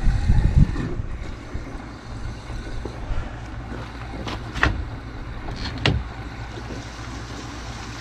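Wind rumbling on the microphone, strongest in the first second, with three or four sharp clicks and knocks between about four and six seconds in as the fittings in the RV's sewer hookup bay are handled.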